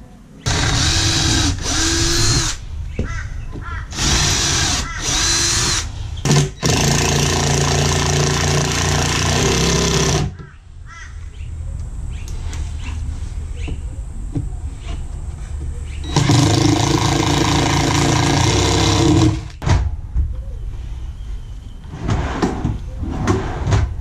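Ryobi cordless drill run four times against the cabinet's board panel, each run one to three and a half seconds long, with a steady motor whine. Between runs and near the end there are lighter clicks and knocks of handling.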